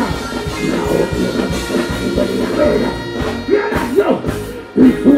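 Dancehall music played loud through a live PA, with a deejay chanting into a microphone over the beat.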